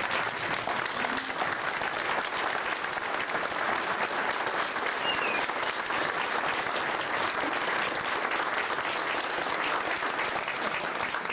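A large audience giving a standing ovation: many people clapping steadily.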